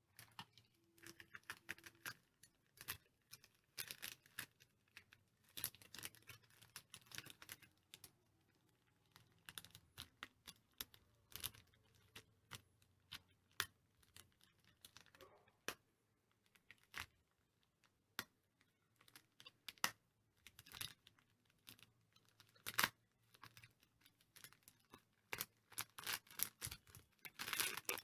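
Clear plastic packaging bags crinkling and crackling as they are handled and opened, in an irregular run of sharp crackles with short pauses between.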